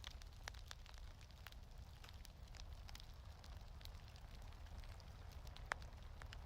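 Wood fire crackling in a fireplace: scattered small pops and one louder pop near the end, over a steady low rumble.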